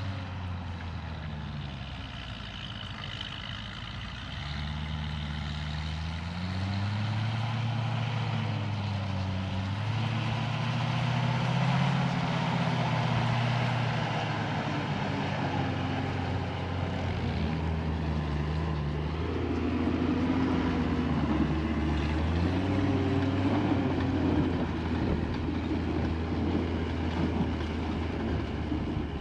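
Engine of a tracked over-snow vehicle running under way, its pitch rising and falling as the engine speed changes, louder after a few seconds.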